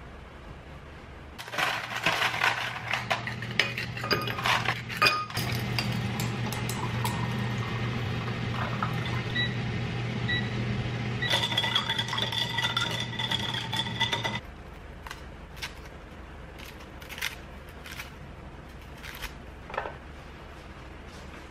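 Kitchen clatter: dishes and glassware clinking and knocking, busiest in the first few seconds, then a steady low hum with a few ringing tones in the middle, and scattered single clinks near the end.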